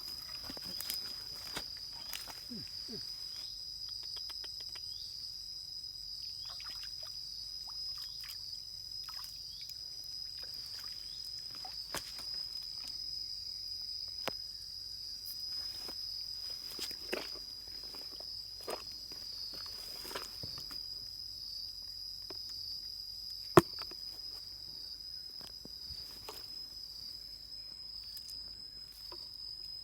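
A steady, high-pitched chorus of insects droning throughout, with scattered small clicks and knocks over it and one sharp, loud click about two-thirds of the way through.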